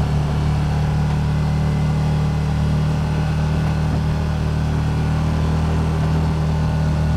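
Can-Am Commander 1000 XT side-by-side's Rotax V-twin engine running steadily at an even, low pitch.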